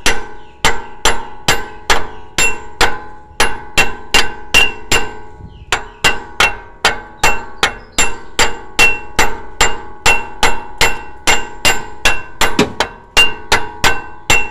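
Rapid metal-on-metal hammer strikes, about three a second, each ringing briefly, on the A/C compressor's magnetic clutch pulley of a Toyota Vios, with a short lull about five seconds in. The pulley is being knocked loose from the compressor shaft after its lock ring has been removed.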